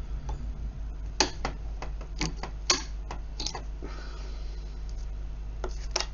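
Irregular sharp metallic clicks and taps from a small brass lever cupboard lock and its wire picking tools being handled, bunched together in the middle with two more near the end, over a low steady hum.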